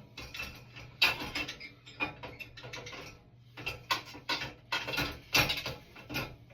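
Irregular clicks and clattering knocks of a cup and dishes being fitted into the racks of a small countertop dishwasher.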